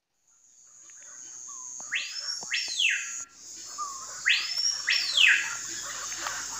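A bird calling twice, each call a loud swooping phrase that rises and then falls in pitch, over a steady high-pitched whine.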